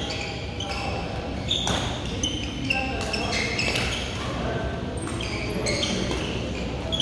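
Doubles badminton rally: shoes squeaking sharply on the court floor again and again, with the crisp clicks of rackets striking the shuttlecock.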